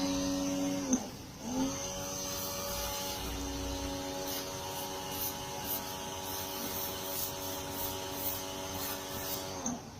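Hyundai HPW105M electric pressure washer's motor and pump running with a steady hum. About a second in the pitch sinks as it stops, then rises as it restarts half a second later. It runs steadily until it winds down again near the end, in the way of its auto-stop as the gun's trigger is released and pressed.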